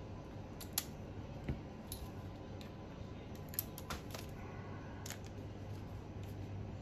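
A handful of light, irregular metallic clicks and taps from small hand tools working on the back plate screws of a nitro RC car engine as it is taken apart.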